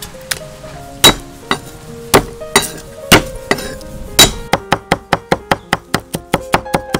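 Cleaver striking a thick wooden chopping block: several heavy single whacks, then rapid, even chopping of garlic and shallots at about five strokes a second from about four and a half seconds in. Background music plays throughout.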